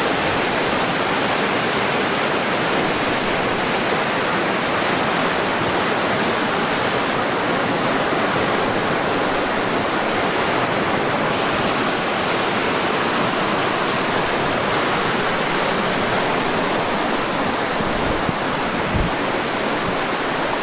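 A forest river in spate after heavy rain, its fast, foaming water rushing with a steady, even roar.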